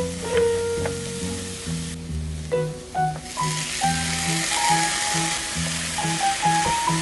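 Small dried anchovies (jan-myeolchi) sizzling in a hot frying pan as they are stir-fried. The sizzle gets louder about three seconds in, when sliced chili peppers go into the pan. Background music plays over it.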